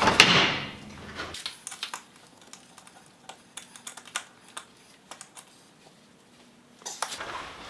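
A short clatter, then light, irregular metal clicks and taps as a hand tool tightens the set screw on a garage door torsion spring's cable drum.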